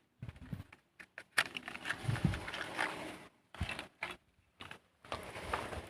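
Irregular knocks, clicks and rustling of parts or tools being handled, in short uneven bursts with brief gaps.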